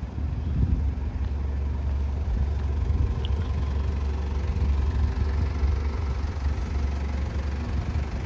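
Toyota Regius Ace's 1KZ-TE 3.0-litre four-cylinder turbo diesel idling steadily, a deep rumble that gets louder about half a second in.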